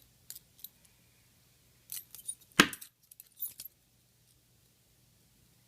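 All-metal butterfly knife being handled, its loose hinged handles clicking and clattering against each other in a few short bursts, with one sharp, louder metal clack about two and a half seconds in.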